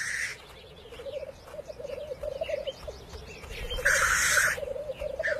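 Black grouse males' courtship display: a continuous bubbling, cooing run of quick rookoo notes, with a short hissing call about four seconds in.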